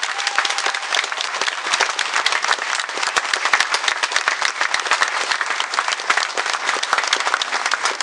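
A roomful of people applauding after a song, with dense, steady clapping.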